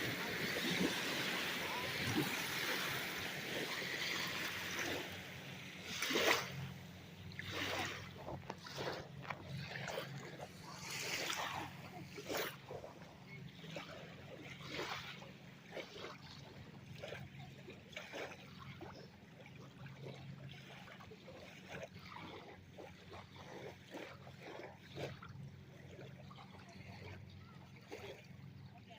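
Water at the shore: a steady wash of surf at first, then irregular splashing and sloshing that slowly gets quieter.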